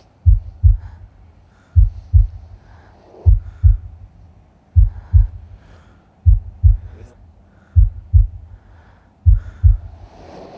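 Slow heartbeat sound on a dance soundtrack: deep double thumps, lub-dub, one pair about every second and a half, with faint softer sounds between the beats. A rushing sound swells in near the end.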